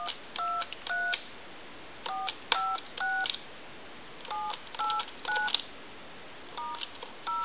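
Touch-tone (DTMF) dialing from a duck novelty telephone's handset keypad: short two-tone beeps in groups of three, about a second between groups, each group a step higher in pitch as the keys are pressed row by row. This is the final dial-out test of a phone that could not dial out before repair, and the tones come through cleanly.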